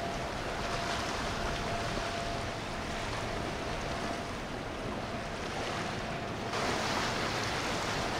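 Motorboat running on the water, its engine under a steady rush of water and wind on the microphone; the rushing turns suddenly louder about six and a half seconds in.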